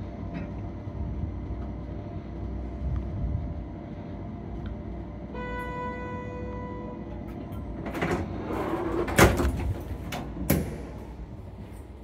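Passenger lift built in 2009, running with a low hum. About five seconds in comes a single electronic arrival beep lasting about a second and a half. Then the automatic sliding doors move with a rush and two loud clunks.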